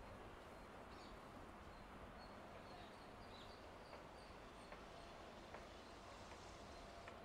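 Near silence: faint steady outdoor background hiss with a few faint, short high chirps.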